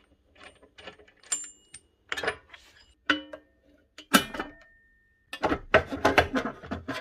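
Irregular metal clanks and knocks as a cutoff saw and its broken blade guard are handled, some knocks ringing on briefly. There is a loud knock about four seconds in, then a quick run of clattering near the end.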